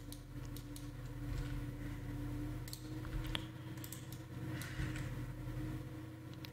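Computer keyboard and mouse clicks: a few scattered key presses and scroll-wheel clicks, over a steady low hum.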